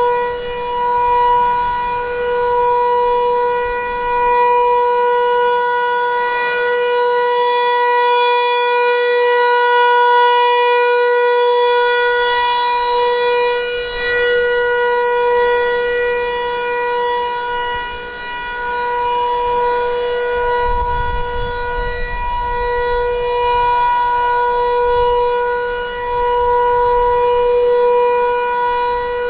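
Federal Signal 508-128 rotating outdoor warning siren sounding a steady Alert: one continuous held tone near 500 Hz that swells and fades in loudness every few seconds as the siren head turns.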